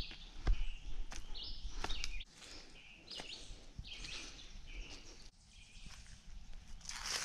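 Wild birds calling repeatedly in woodland, short high chirps about once a second, over footsteps on a dirt and leaf-litter trail, with a low rumble in the first two seconds.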